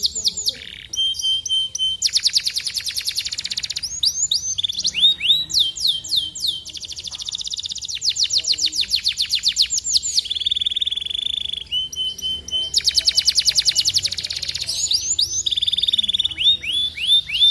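Domestic canary singing a long song. Fast rolling trills of rapidly repeated notes alternate with runs of downward-sweeping whistles, with a steady held note a little past the middle.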